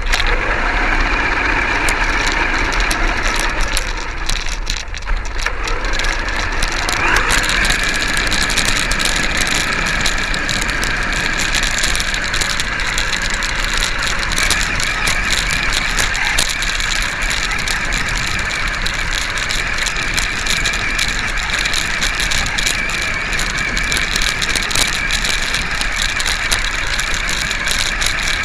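Seben 4WD 1:10 RC monster truck's motor and drivetrain heard from on board: a steady high whine with gears rattling and many small knocks as it bounces over the ground. The whine rises about seven seconds in as the truck speeds up.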